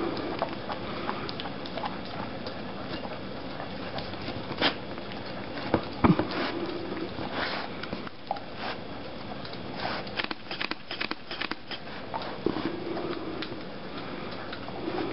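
A dog eating and licking food off a plate set on a wooden floor: chewing, licking and sniffing, with scattered clicks and knocks of mouth against the plate. The loudest knock comes about six seconds in, and a quick run of clicks follows around ten to twelve seconds in.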